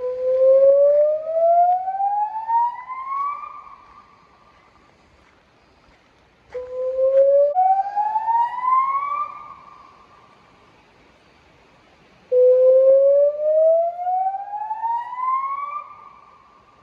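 Electronic river warning siren sounding through Bosch LBC-3406 horn loudspeakers in its warning signal: three slow rising sweeps a few seconds apart. Each climbs for about three seconds, holds briefly at the top and dies away; the second jumps up partway through its rise.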